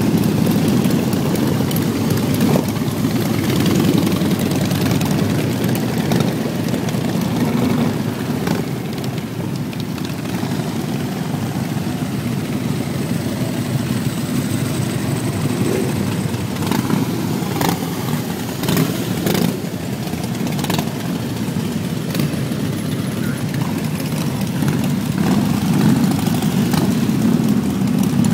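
Steady low rumble of wind buffeting the microphone while riding, with a few faint clicks in the second half.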